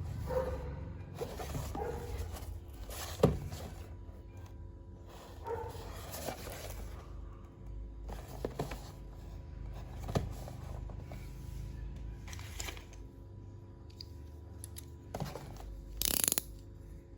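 Hands handling a plastic toy and its packaging: scattered clicks and knocks with short rustling bursts, the sharpest knock about three seconds in and a longer rustle near the end.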